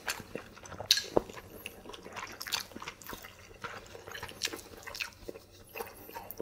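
Close-miked eating sounds: soft, wet chewing and small mouth clicks, scattered and irregular.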